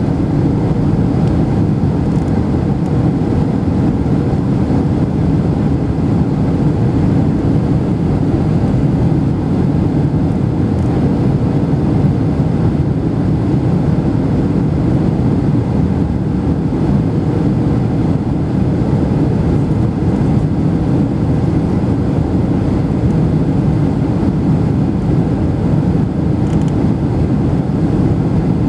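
Jet airliner cabin noise from a window seat on approach: engines and rushing air as a steady, deep, even rumble with a faint steady hum.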